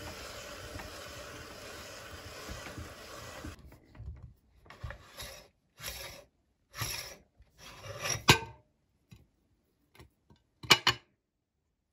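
Hand-cranked metal meat grinder pressing crushed chocolate biscuits through its plate, a steady grinding hiss that stops after about three and a half seconds. Then metal parts of the grinder scrape and rub as its retaining ring is unscrewed, with a sharp metal clink about eight seconds in and a loud quick double clink near the end.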